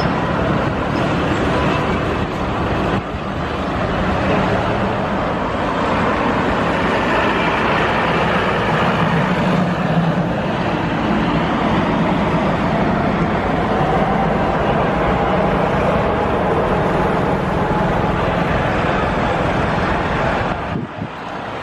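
Boeing 777-300ER's twin GE90 turbofan engines running loud and steady as the airliner moves down the runway for takeoff, a dense rushing jet noise with some held tones underneath.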